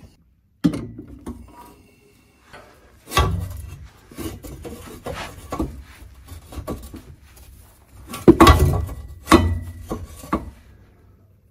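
A steel exhaust silencer and tailpipe being pushed and twisted into place under the car: irregular metal scraping and knocking, with heavier clunks about three seconds in and again around eight to nine seconds, one of them briefly ringing.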